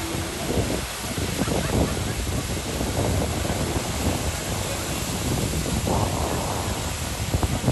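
Outdoor crowd ambience: a steady rushing wash of noise with indistinct voices of many people mixed in.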